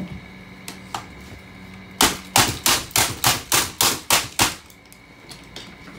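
Hammer striking the plastic housing of a Bissell stick vacuum: a fast run of about nine sharp blows, roughly three a second, with a few lighter knocks before and one after.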